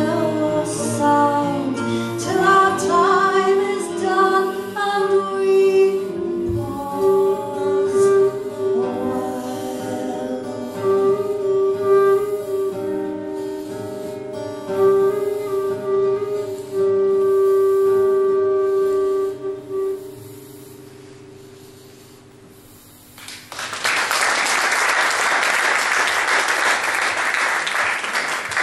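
Folk singing with instrumental accompaniment, ending on a long held note that fades out, then an audience applauding for about five seconds.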